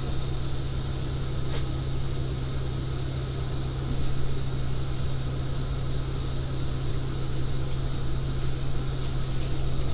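Steady low hum of a running ambulance, heard inside its rear patient compartment, with a faint steady high whine over it.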